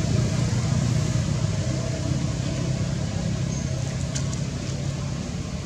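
A steady low engine hum, with a few faint clicks about four seconds in.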